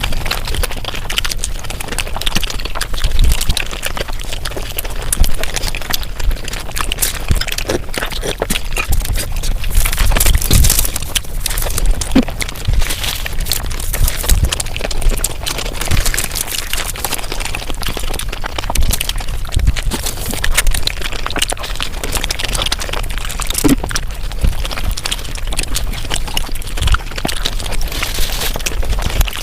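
Close-miked eating sounds sped up about five times: rapid chewing and crunching that runs as a dense stream of clicks and crackles, with a few louder snaps.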